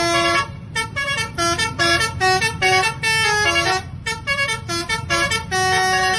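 Bus telolet (basuri) melody horn playing a quick tune: a run of short notes at changing pitches with a longer held note near the end, over a low engine rumble.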